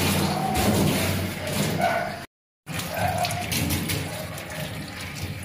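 Water spraying from a handheld shower head onto a wet dog's coat and into a stainless-steel grooming tub, a steady hiss and splatter that cuts out for a moment a little over two seconds in.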